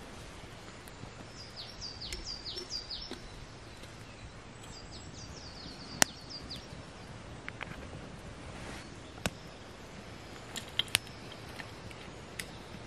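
A songbird sings two short phrases of quick falling notes over a steady outdoor hiss, while a wood fire in a metal twig stove gives a few sharp snaps, the loudest about halfway through.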